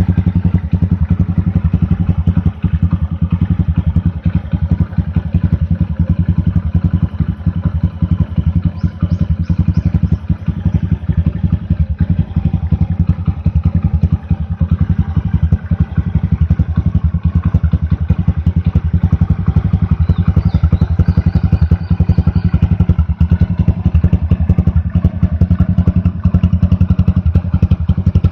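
Honda Super Cub 90's single-cylinder four-stroke engine running steadily through a Moriwaki titanium Monster muffler, giving an even, rapid exhaust beat with no revving.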